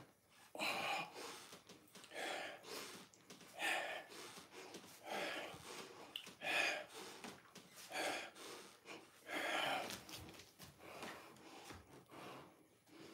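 A man breathing out hard in short, regular puffs, about one every second and a half, with the effort of each dumbbell repetition; the breaths grow fainter near the end.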